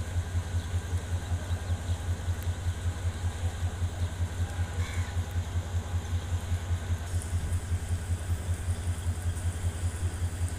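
Diesel locomotive engine idling: a steady low hum that throbs evenly several times a second.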